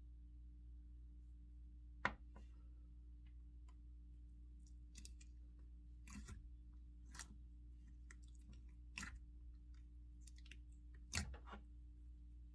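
Foam-bead slime being mixed and squeezed by hand, giving scattered sharp pops and clicks of air bubbles and crunches of foam beads, with the sharpest pops about two seconds in and near the end, over a low steady hum.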